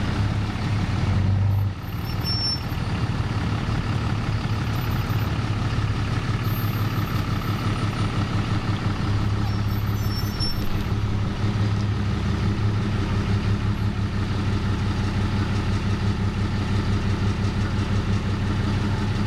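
Pickup truck engine idling in slow, stop-and-go traffic, heard from inside the cab: a steady low hum with a fast, even pulse.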